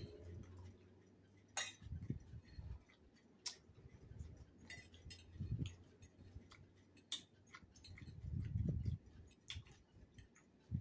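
A metal fork clicking and scraping against a plate as fish is picked apart, a quiet scatter of light irregular clicks with a few soft low thumps in between.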